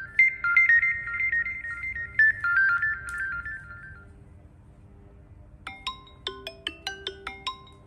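Redmi 9 Power phone ringtones played one after another. The first is a fast run of high, bright notes that fades out about four seconds in. After a short gap, a new tone starts near the end with sharply struck notes, several a second.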